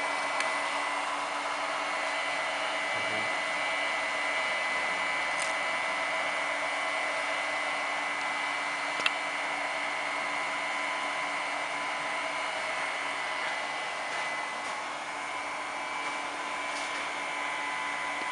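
Cooling fans of two 300 W lipo balance chargers and their switching DC power supplies running steadily while charging a 10S drone battery: an even whirring hiss with a few faint steady whines. One sharp click about nine seconds in.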